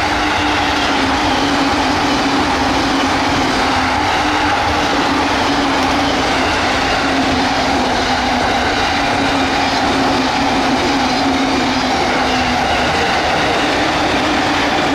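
JR electric train running at high speed: steady rolling noise with a motor whine that slowly falls in pitch and fades near the end.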